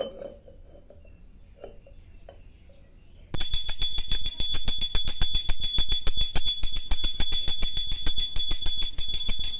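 Small brass puja hand bell rung rapidly and continuously. Quick, even clapper strokes carry a high, steady ringing tone, starting a little over three seconds in. Just before it there is a single sharp knock at the start and a few faint handling sounds.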